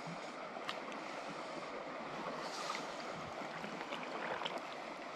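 Shallow river water running steadily, an even rushing sound, with a few faint clicks.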